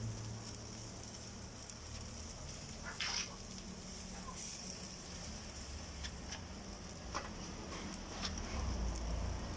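Meat and pork skin sizzling over a charcoal grill, a steady hiss with a few short clicks of metal tongs on the grate.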